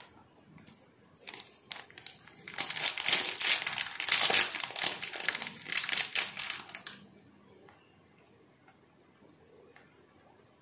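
Crinkling plastic packet handled while tutti-frutti is taken out of it. A few light rustles come first, then a dense stretch of crinkling from about two and a half seconds in to about seven seconds, after which it goes quiet.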